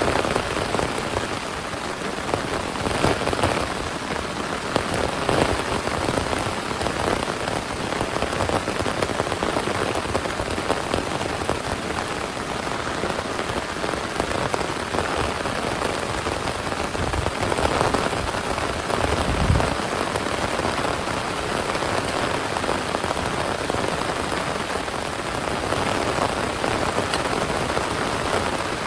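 Heavy rain falling steadily, with close drops pattering on a surface. A single brief low thud sounds about two-thirds of the way through.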